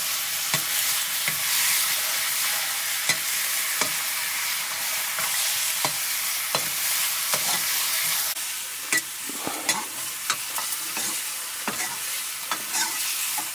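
Meat sizzling in a black wok over a wood fire, with a metal ladle scraping and knocking against the pan as it is stirred. The sizzle drops quieter about eight seconds in.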